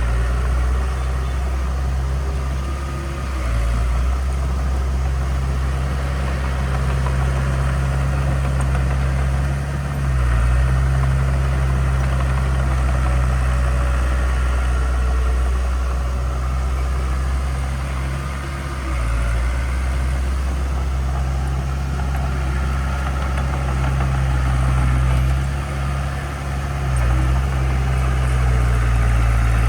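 Heavy diesel engine of earthmoving equipment running steadily, its low note dipping and shifting briefly a few times as the load changes.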